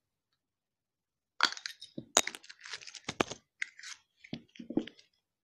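Plastic toy pieces and packaging handled by hand: a dense run of crackles and sharp clicks starting about a second and a half in.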